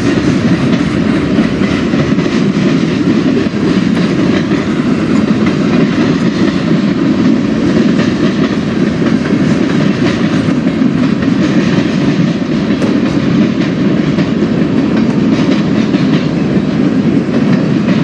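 Freight cars of a CSX manifest train rolling past: a steady rumble with faint clicks of the wheels over the rail joints.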